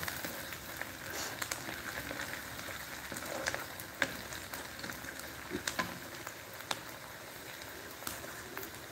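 Sliced onions frying in oil in a kadhai, a steady sizzle with scattered sharp clicks, as they are stirred with a wooden spatula and browned lightly.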